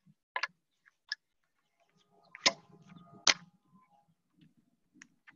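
Winterguard rifle being handled: a few light clicks, then two sharper knocks a little under a second apart near the middle.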